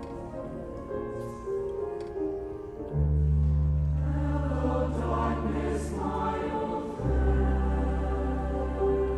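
High school mixed choir singing held chords in harmony with instrumental accompaniment; deep bass notes come in about three seconds in and again, after a brief drop, about seven seconds in.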